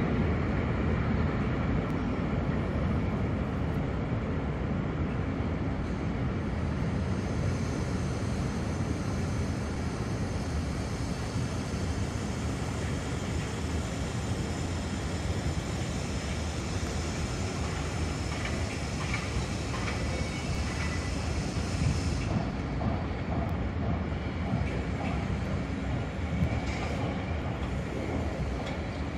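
Container freight train rolling across a steel truss railway bridge: a steady rumble of wagons. A high whine rides over it from about six seconds in until about twenty-two seconds.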